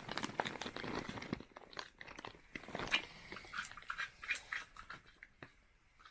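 Close-up mouth sounds of eating brittle lollipops with popping candy: a dense run of crunching and crackling clicks for the first second and a half, then scattered pops and crunches.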